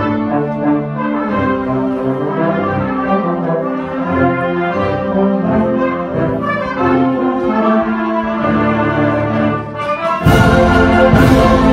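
School symphonic wind band playing a reel, with brass prominent. About ten seconds in, the full band comes in louder with sharp, repeated hits.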